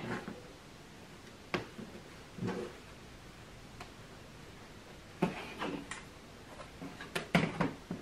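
Cotton fabric pieces being lifted, peeled apart and shifted on a cutting mat: soft rustles with a few light clicks and taps, one about a second and a half in and a cluster near the end.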